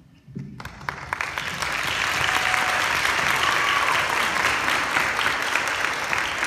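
Audience applauding: the clapping starts about half a second in, swells over the next second or so and then holds loud and steady.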